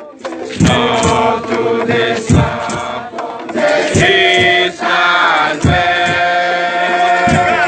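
A group of voices chanting a Nyahbinghi chant together in long held notes, with heavy beats, likely drums, falling every second or so.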